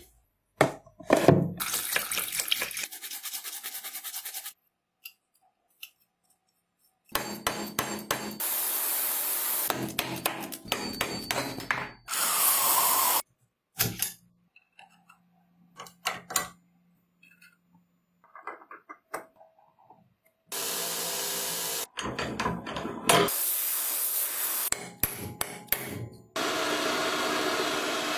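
A series of short, separate workshop sounds with abrupt cuts and silent gaps between them: tool work on a rusted screwdriver's iron ferrule, ending with a milling machine drilling into the ferrule.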